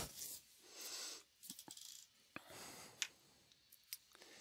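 Quiet room tone from a close microphone with soft breaths and a few small, scattered clicks; one sharper click right at the start.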